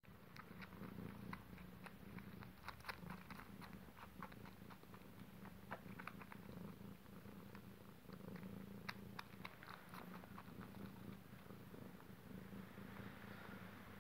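Domestic cat purring steadily, with many small quick clicks as a young cat suckles.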